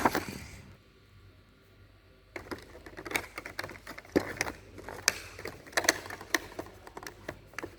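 Packaging and plastic parts of a vlogging kit being handled: irregular clicks, taps and rustling, starting about two and a half seconds in after a short lull.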